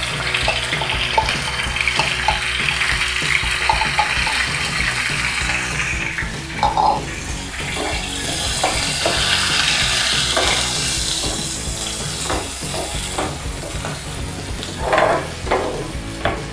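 Wet onion paste sizzling in hot oil in a nonstick frying pan, freshly added and being fried off. A steel ladle stirs it, scraping and tapping against the pan, with the taps coming more often near the end.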